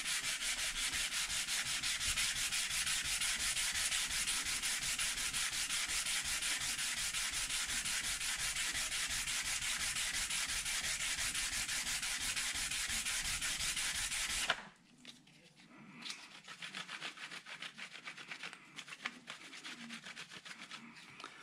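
Ducati oil pump part being lapped flat by hand on abrasive paper over a flat plate: fast, even back-and-forth rubbing strokes that grind away machining marks and a groove in the face. The strokes stop about two-thirds of the way through, and quieter, irregular rubbing follows.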